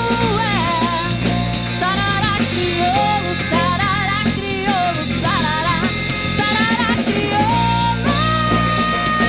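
Brazilian pop-rock band recording playing: drum kit and bass under a wavering lead melody line that bends in pitch.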